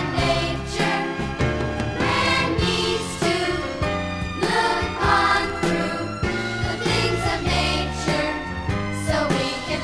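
Music: a Christian song, with a steady beat under a melody.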